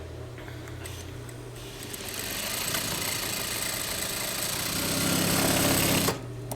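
Juki DDL-8500 single-needle lockstitch industrial sewing machine running with its high-speed motor and stitching fast, getting louder over a few seconds, then stopping abruptly near the end. A low motor hum runs under it.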